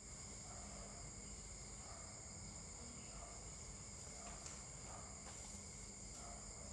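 Faint steady high-pitched whine over hiss and a low hum, with a few soft faint ticks.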